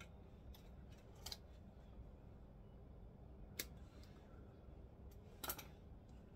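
Near silence with a few sharp clicks and snips from small hand tools: about three separate clicks, the last a quick little cluster.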